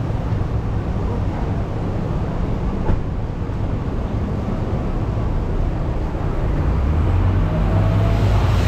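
Steady low rumble of street traffic, with a nearby vehicle engine growing louder and rising slightly in pitch near the end.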